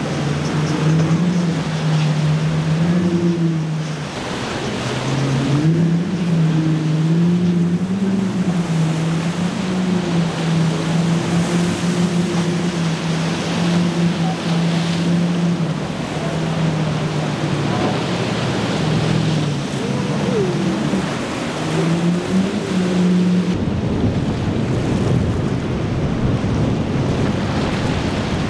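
Four Mercury 350 hp outboards on a center-console boat running at speed, their engine note wavering up and down as the boat crosses the waves, over the rush of wind and surf. About 24 s in the engine note drops out, leaving only wind and surf noise.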